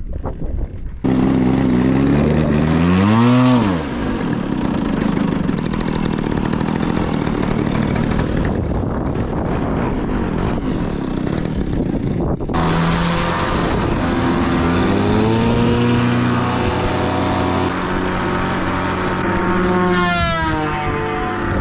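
RC model airplane's engine, starting abruptly and revving up with a quick rise in pitch, then running hard. Later its pitch slides down and back up several times as the model is throttled or flies about.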